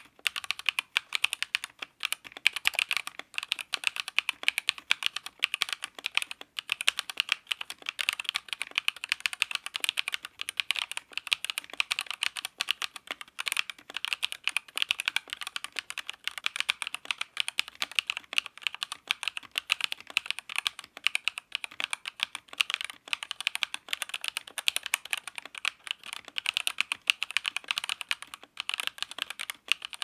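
Redragon K631 PRO SE mechanical keyboard being typed on without pause, many keystrokes a second from its stock pre-lubed quiet linear switches.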